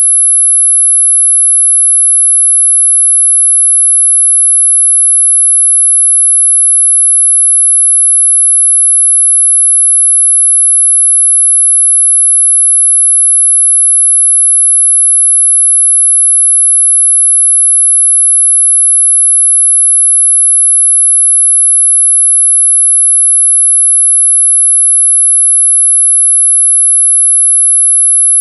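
A steady, very high-pitched pure sine tone at about 11 kHz, electronically generated and held at one unchanging pitch and loudness, used as a sound to mask high-pitched tinnitus ringing.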